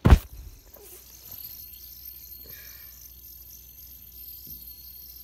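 A sharp knock as the fidget spinner is handled, then its ball bearing whirs steadily and faintly as it spins.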